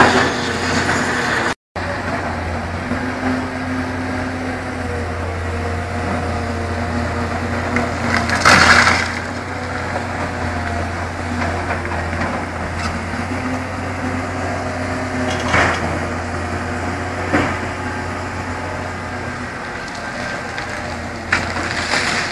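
Construction machinery at work: a diesel engine runs steadily with a low hum, with a few loud knocks and clanks of heavy material, the loudest about eight seconds in. The engine hum stops a few seconds before the end.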